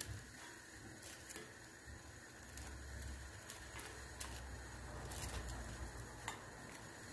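Faint, scattered light taps and scrapes as wooden tongs turn slices of bread on a ridged cast-iron grill pan, over a faint low hum.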